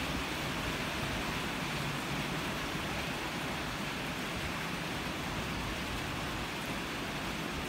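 Steady rain falling, an even hiss with no change in level.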